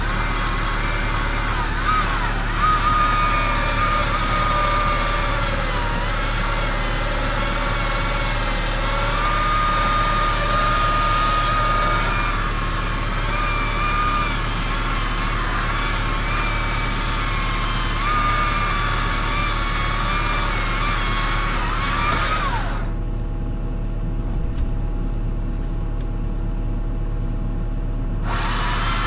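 Engine of a working machine running steadily, with a whining tone that wavers up and down in pitch. The higher part of the sound drops away for about five seconds near the end, leaving a low drone.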